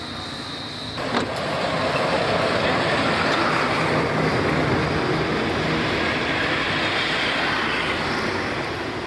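Road traffic passing close by on a highway: a steady rush of tyre and engine noise that starts abruptly about a second in and holds for the rest of the time.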